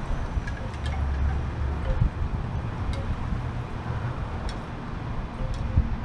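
Wind buffeting the microphone, a low gusty rumble that rises and falls, with a few faint, short high ticks.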